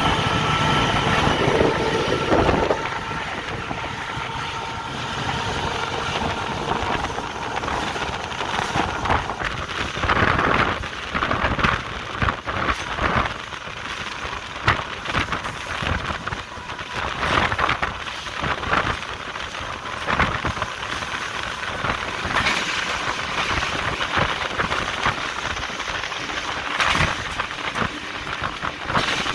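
Cab of a GE U18C diesel-electric locomotive under way, with its diesel engine running and a steady rumble broken by irregular knocks and rattles. A couple of steady tones sound at the start and stop after about two seconds.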